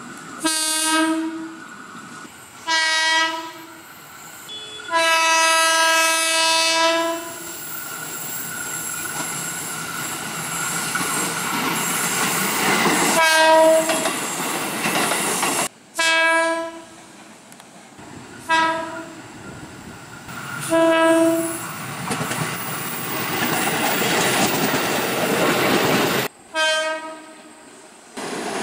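KRL commuter electric trains sounding their horns: about ten blasts of a single steady tone, most short and one held for about two seconds. Between the blasts comes the rising rumble and wheel clatter of a train passing.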